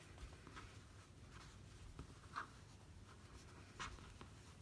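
Faint rustling and brushing of cotton fabric being handled and slid over a cutting mat, with two short louder scuffs about two and a half and four seconds in.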